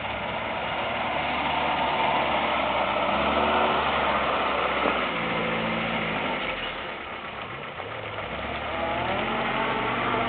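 Off-road 4x4's engine revving under load as it climbs a muddy slope. The revs ease off about seven seconds in and climb again near the end.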